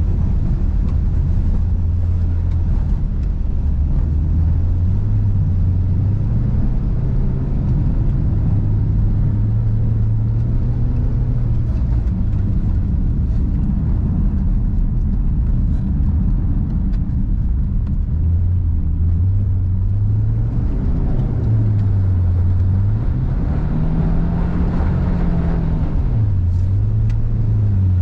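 Subaru Forester SJG's engine driven hard through a rally sprint stage on ice. The revs keep rising and falling, with one long climb and drop a little before the end, over a steady low rumble.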